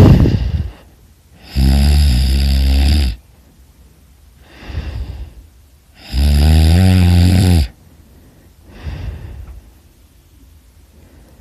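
A person snoring: two loud, low snores about a second and a half long and about four and a half seconds apart, with softer breaths between them. A brief loud sound comes at the very start.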